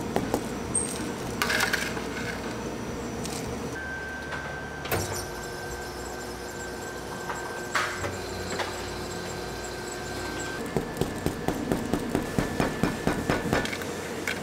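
Cafe counter work: a soft-serve ice cream machine whirs steadily for several seconds while a cup is filled, with a few clinks and knocks around it. Near the end comes a quick run of light taps, about three a second, as cookie crumbs are shaken out of a plastic tub into the cup.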